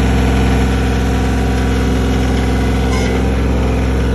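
Kioti compact tractor's diesel engine running steadily, heard close up from the driver's seat.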